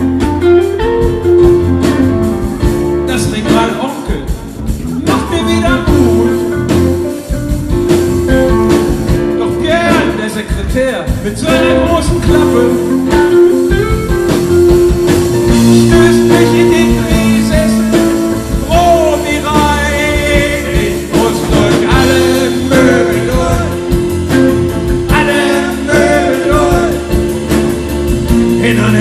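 A live rock band playing: a man singing over electric guitars, keyboard and drums, with a long held keyboard note under the voice.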